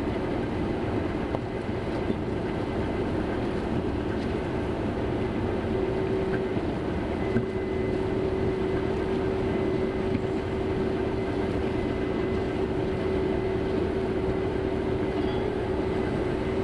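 Combine harvester running, heard from inside the cab: a steady mechanical rumble, with a steady hum joining about six seconds in.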